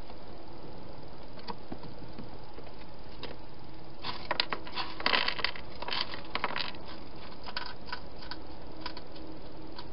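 A hedgehog eating from a bowl inside a plastic feeding box: a dense run of sharp crunches and clicks from about four seconds in to about seven, then a few scattered clicks, over a steady hiss.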